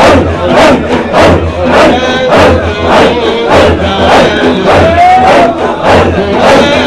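Sufi dervishes chanting dhikr together: a loud, forceful breathy chant repeated in a steady rhythm, a little under two times a second. Singing voices carry a melodic line over the pulse.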